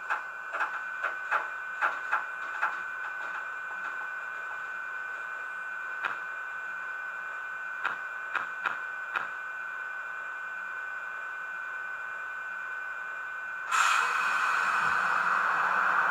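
Sound decoder of an H0 model SNCF BB 7200 electric locomotive playing standstill locomotive sounds: a steady high whine with a quick series of clicks at first and a few single clicks later. About 14 seconds in, a sudden louder hiss starts and keeps going as the locomotive prepares to move off.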